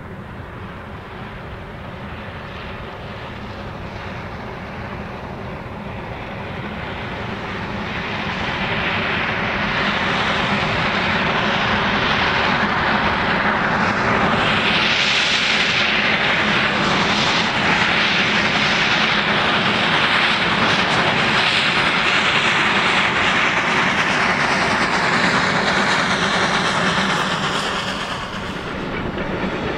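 Class NGG16 Garratt No. 153, a narrow-gauge articulated steam locomotive, working hard with a freight train. Its exhaust grows steadily louder as it approaches over the first ten seconds or so, then holds, with a brief dip near the end.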